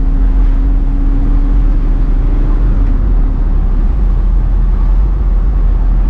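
Car driving at a steady speed, heard from inside the cabin: a deep, even rumble of engine and road noise. A faint steady hum fades out about halfway through.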